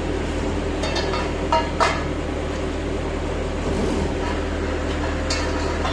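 Isuzu Elf crane truck's engine running steadily, with a few short metallic clanks: two close together about a second and a half in, another about five seconds in.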